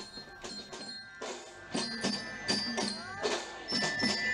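Marching band playing: a steady beat of drums and percussion with sustained ringing tones over it, faint at first and louder from about two seconds in.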